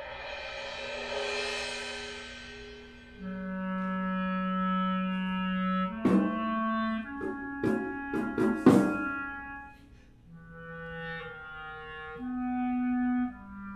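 Clarinet and drum set playing contemporary chamber music. The clarinet holds long notes, first over a swelling cymbal wash, then under a short flurry of sharp drum and cymbal hits in the middle, then alone on slow held notes near the end.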